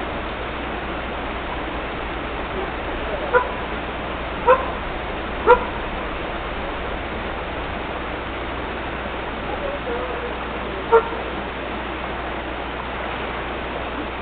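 A dog giving four short, high barks: three close together and one more several seconds later. Behind them runs a steady hiss of water.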